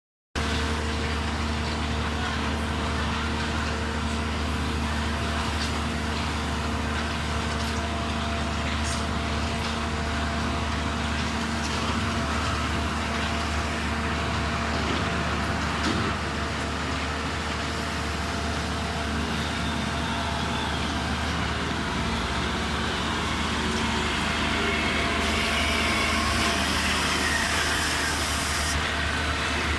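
Engine of a concrete mixer pump truck running steadily with an even hum, growing a little louder in the last few seconds.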